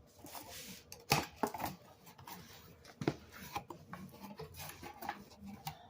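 A cardboard shipping box and its packing being handled: rustling and scraping with scattered sharp knocks and clicks, the loudest knock about a second in.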